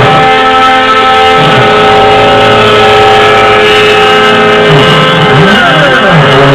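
CNC-3040AL desktop mill's stepper motors whining as it mills aluminium, a set of steady tones during the feed, and pitch that sweeps down and back up about five seconds in as the axes slow, reverse and speed up again.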